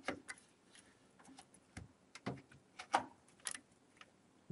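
Scattered clicks and light knocks of a memory stick being pressed down into a motherboard RAM slot, with a few sharper clicks about three seconds in as the slot's plastic retention clips snap shut.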